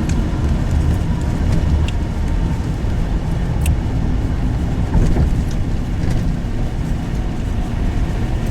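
Car cabin road noise while driving: a steady low rumble of tyres and engine, with a few faint ticks about every two seconds.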